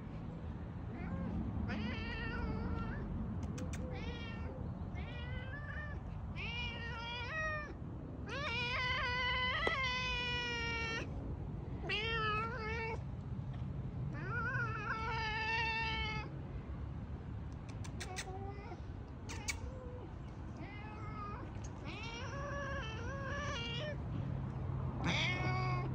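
A black-and-white cat meowing over and over, a string of calls that rise and fall in pitch, some short and some drawn out for a second or more, the longest around the middle.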